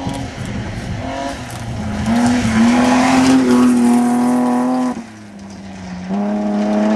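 BMW 325i rally car's straight-six engine revving hard, pitch climbing and stepping through the gears, with a hiss of tyres on loose gravel as it passes. About five seconds in the sound drops away suddenly, then comes back at high revs about a second later.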